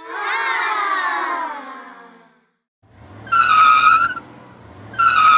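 Dubbed monster-truck sound effects. A wavering pitched sound falls for about two seconds. Then come two tire-squeal skids, each about a second long, over a low engine rumble.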